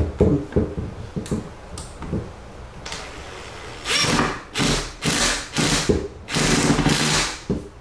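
Cordless drill-driver running in several short bursts as it drives a Phillips screw into a dishwasher kick plate. Before that there are a few light knocks and clicks as the plate and screw are positioned.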